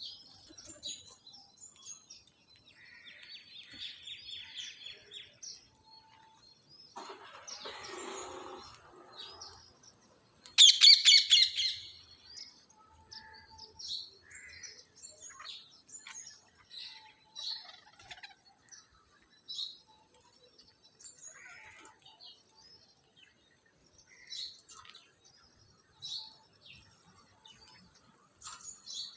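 Parrots making many short, high chirps throughout, with one loud, harsh squawk about ten and a half seconds in. A brief scratchy noise comes about seven seconds in.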